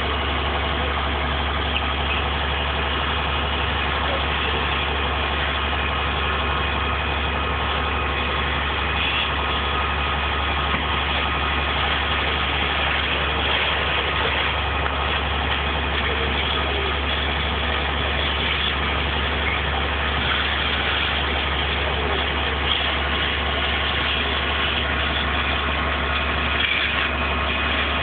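An engine idling steadily, a continuous hum that does not change.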